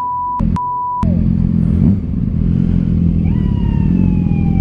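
Two short censor bleeps, steady 1 kHz tones that mute everything else, in the first second. Then motorcycle engines idle in stopped traffic. A long, slowly falling tone rises over the engines near the end.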